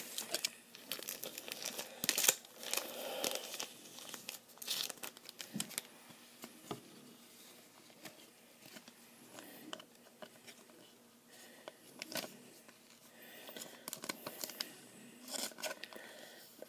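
Thin clear plastic card sleeve crinkling and rustling in the hands as a trading card is slid into it, in short irregular bursts with small clicks and a quieter stretch in the middle.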